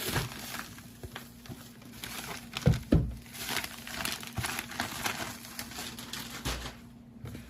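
Delivery packaging being unwrapped by hand, with a continuous crinkling and crackling and two sharp knocks about 3 seconds in, the loudest sounds, and another dull thud near the end as the contents are handled.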